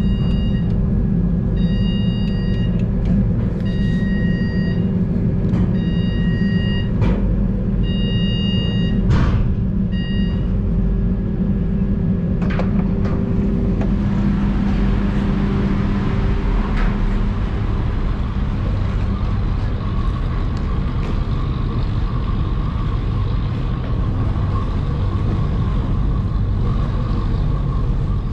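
A heavy vehicle's engine running close, with a steady low hum, while an electronic warning beep sounds on and off for about the first ten seconds. The engine hum then fades into a broader rush of passing street traffic.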